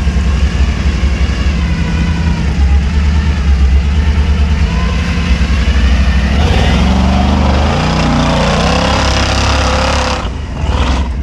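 LS V8 engine in a Land Cruiser working hard off-road, with a heavy low rumble and wavering engine note; from about two-thirds of the way in the revs climb, then ease near the end. The high revs under load go with an automatic transmission the crew say is slipping badly.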